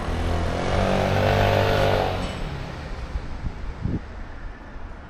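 A motor vehicle passing close by: its engine swells to a peak about a second and a half in and fades away by about two seconds in. Steady street noise runs underneath.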